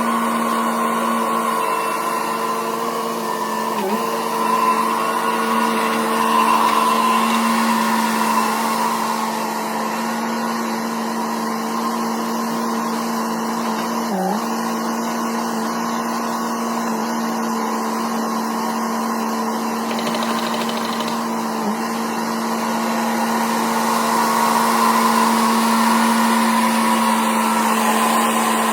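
Engine of a Kubota mini skid steer running steadily at working speed. Its pitch sags briefly about three times as the machine takes a load.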